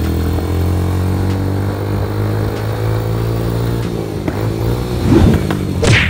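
Motorcycle engine running at a steady speed while riding, the pitch easing down about four seconds in. Two loud sudden bursts come near the end.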